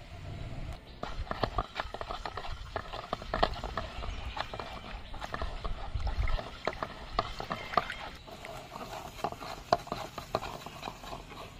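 Irregular sharp clicks and taps, about two a second, starting about a second in, over a low rumble.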